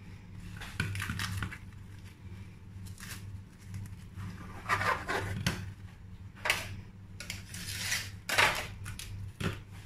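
Plastic cling film crinkling and rustling in irregular bursts as it is wrapped and pressed around a soft salad roll, over a low steady hum.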